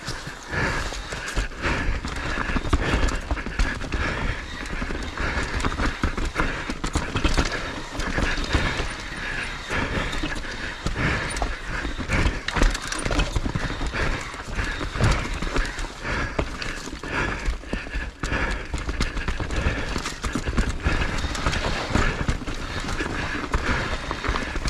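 Skis scraping and clattering over the snow through a series of turns, with wind rumbling on the microphone.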